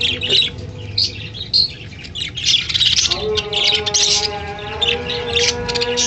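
Budgerigars chattering: a rapid stream of high chirps and squawks, easing off briefly about two seconds in and picking up again.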